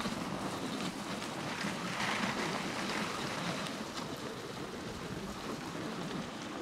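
Steady rushing noise of a moving dogsled: the sled's runners hissing over snow, mixed with wind buffeting the microphone, which swells a little about two seconds in.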